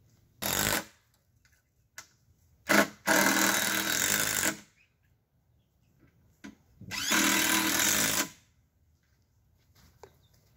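Cordless drill driving fasteners into wooden framing lumber, in three runs: a short one near the start, then two of about a second and a half each.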